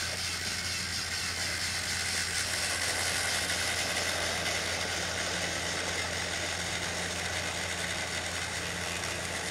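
Battery-powered TrackMaster toy train's electric motor and gearbox whirring steadily as it runs along plastic track, a little louder as it passes close by about three seconds in.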